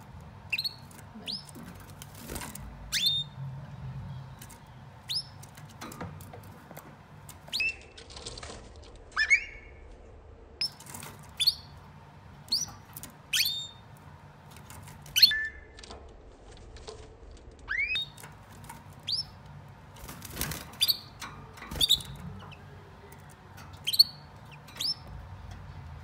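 Male canaries giving short, sharp chirps, each dropping quickly in pitch, about one a second at irregular intervals, with a few brief flutters of wings, as rival males squabble.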